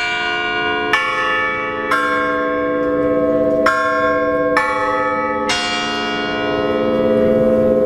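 Church tower bell ringing at close range, its clapper striking about once a second, each stroke ringing on into the next.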